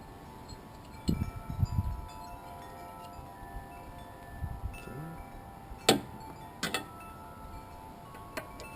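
Wind chimes ringing, several tones at different pitches overlapping and fading. A few low thuds and sharp clicks of hands and tools at work on the mower are mixed in.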